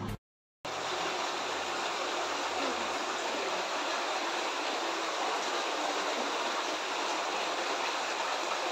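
Shallow rocky river flowing: a steady rush of running water that starts abruptly just under a second in.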